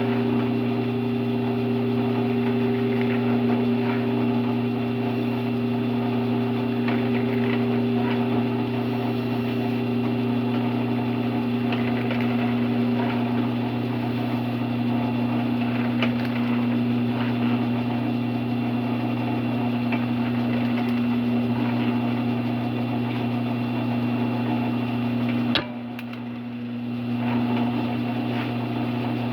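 Drill press motor running with a steady hum while holes are drilled into a wooden workpiece, with faint ticks throughout. A sharp click comes about 26 seconds in, the sound drops briefly, then comes back up.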